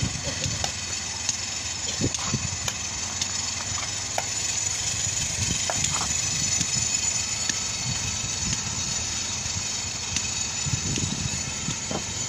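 Rough stone slabs knocking and clinking now and then as they are set down and stepped on in a loaded truck bed, over a steady background noise.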